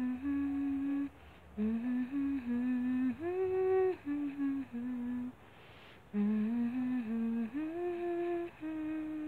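A person humming a slow lullaby tune of held notes that step up and down, in phrases with short pauses between them.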